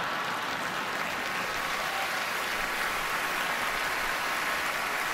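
Large theatre audience applauding steadily, with laughter mixed in.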